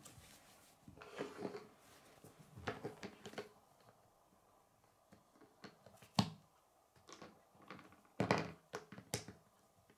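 Chunky plastic Kid K'nex pieces being handled and fitted together on a wooden table: scattered clicks and knocks, the sharpest about six seconds in.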